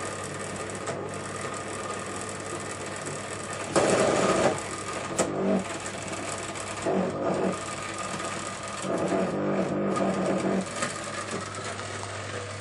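Washing machine running with a steady hum, broken by four louder spells of funny mechanical noise, the longest about a second and a half. The owner takes the noises as a sign that the machine needs servicing.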